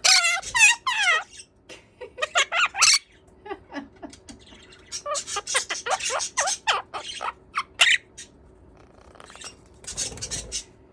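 Quaker parrot (monk parakeet) chattering and squawking in quick runs of short, repeated calls, loudest in a rapid series at the start, with another long run in the middle and a harsh scratchy call near the end.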